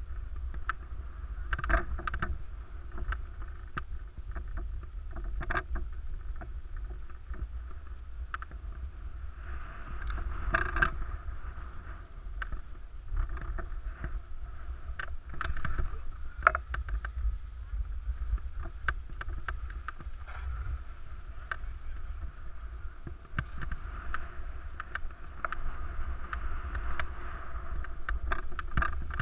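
Skis sliding and scraping over packed snow, a hiss that swells and fades with the turns, with scattered clicks and a steady low wind rumble on the action camera's microphone.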